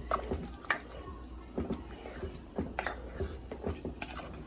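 A spoon stirring chicken pieces through thick tomato sauce in a pot, with irregular light knocks and clicks of the spoon against the pot.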